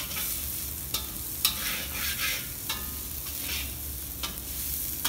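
Boiled potato cubes sizzling steadily as they shallow-fry in ghee in a brass wok, stirred and scraped with a metal spatula that knocks sharply against the pan a few times.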